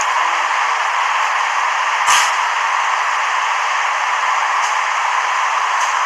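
Steady hiss of background noise, with one short knock about two seconds in.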